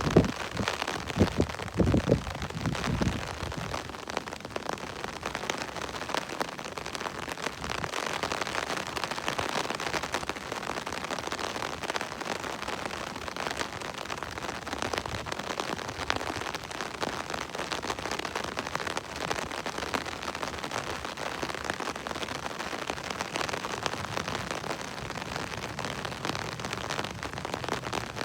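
Steady night rain falling on a surface, a continuous hiss flecked with the ticks of single drops. There are a few low thumps in the first three seconds.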